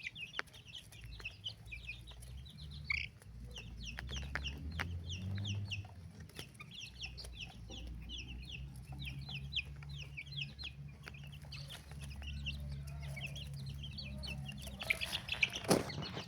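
Many baby chicks peeping together: a dense stream of short, high, falling peeps over a low steady hum. A louder rustle and a knock come near the end.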